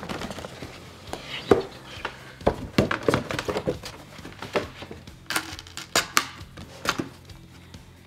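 Cardboard packaging being handled: an outer card sleeve slid off a box and a box lid opened, with a string of sharp taps and knocks of card against card and the table and some papery scraping between them.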